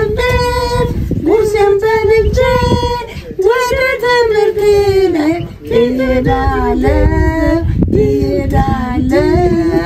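A woman's voice singing a slow melody in long held, sliding notes, over a low rumble.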